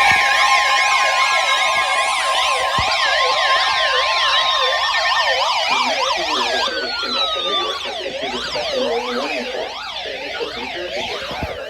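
Several electronic emergency alert alarms sounding at once, their siren tones warbling up and down at different rates over one another. A steady high alert tone runs under them for the first five seconds or so. The mix thins and gets a little quieter in the second half.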